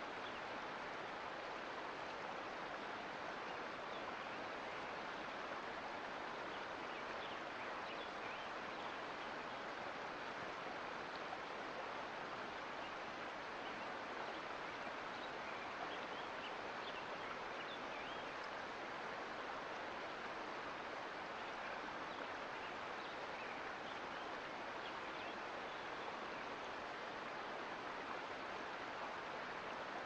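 Mountain creek flowing, a steady, even rush of running water.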